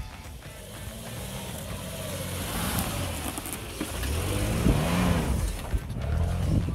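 Toyota Prado 120 four-wheel drive driving past close by in soft sand. Its engine grows steadily louder to a peak about five seconds in, then drops in pitch as it goes by.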